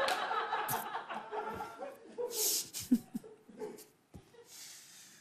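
Studio audience laughing after a joke. The laughter is loudest at the start, dies away over the first couple of seconds, and is followed by a few scattered chuckles.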